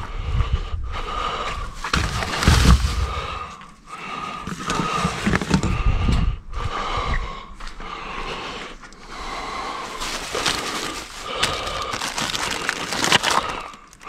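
Plastic bags and packaged food rustling and crinkling as produce is rummaged through and lifted out of a dumpster, with dull knocks from the handling in the first half and a person breathing hard throughout.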